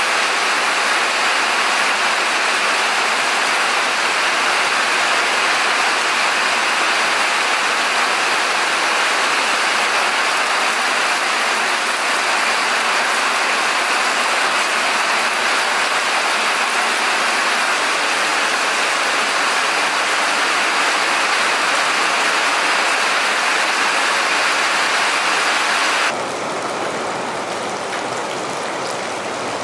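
Steady rain falling, an even hiss, becoming quieter and duller near the end.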